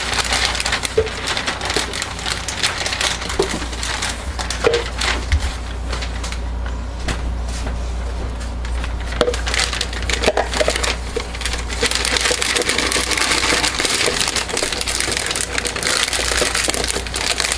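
Plastic piping bag crinkling and rustling as it is pushed down into a tall cup and folded open over the rim, with irregular crackles that grow busier near the end, over a steady low hum.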